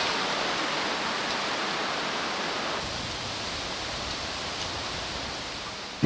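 Steady rushing of running water with no other distinct sounds, easing slightly in loudness toward the end.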